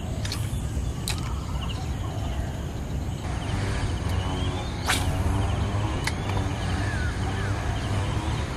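Fishing rod swishing through the air in a few quick, sharp casts, the loudest about five seconds in, over a steady low rumble.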